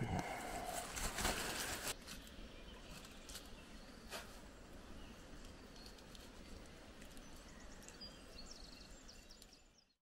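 Forest ambience. For about the first two seconds there is close rustling and handling noise, then a quieter steady hiss with a few clicks and faint high bird chirps, fading out near the end.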